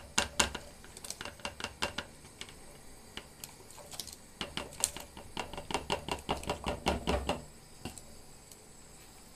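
Cubed potatoes being slid off a plastic cutting board into a pot of boiling broth: a quick patter of small knocks and plops. It comes in two runs, a short one at the start and a longer, denser one from about four and a half to seven seconds.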